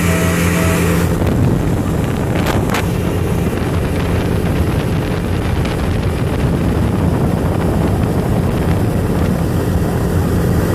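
Sunbird Corsair 218's 5.7 OMC V8 sterndrive engine running steadily at speed, with wind buffeting the microphone and the rush of water past the hull. There are two brief knocks about two and a half seconds in.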